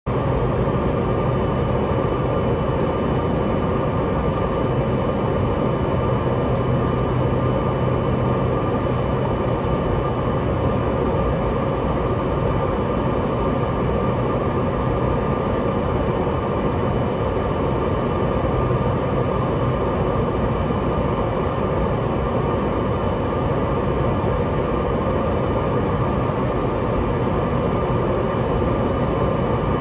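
Cessna 208 Grand Caravan's PT6A turboprop engine and propeller running steadily on approach to land, heard from inside the cockpit as a constant drone with a low hum.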